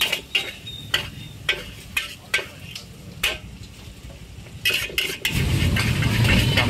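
A metal ladle scraping and clanking against a wok as noodles are stir-fried over a charcoal fire, with frying sizzle underneath. About five seconds in, a loud, steady low rumble takes over.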